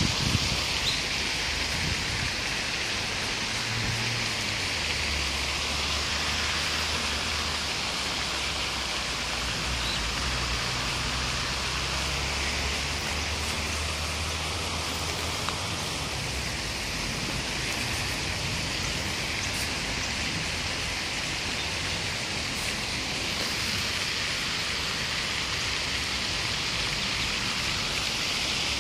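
Steady hiss of water, with a faint low drone from about four to sixteen seconds in.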